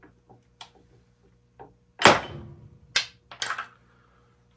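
Faint clicks as a hydraulic bottle jack is pumped, then about two seconds in a loud sharp crack as a glued wooden test block's joint fails under shear load at about 796 pounds. Two more sharp knocks follow.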